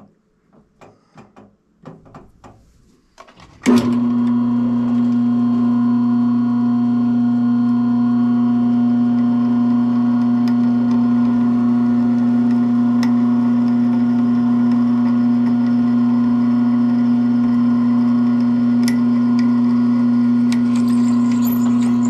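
A few light clicks, then a drill press motor switches on about four seconds in and runs with a steady hum. Near the end faint scraping comes in as the bit starts cutting into the bent metal latch piece.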